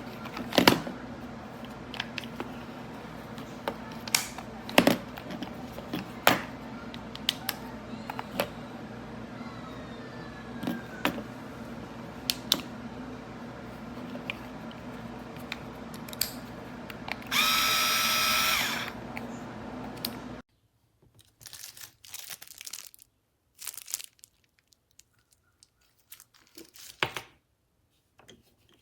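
Black+Decker 4V MAX cordless screwdriver motor running briefly, a steady whine for about a second and a half about two-thirds of the way in, amid scattered clicks and knocks from handling the tool.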